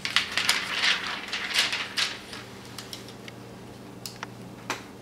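Thin protective plastic film being peeled off a new laptop LCD panel and crinkled: a dense crackle for about two seconds, then a few light clicks as the panel is handled.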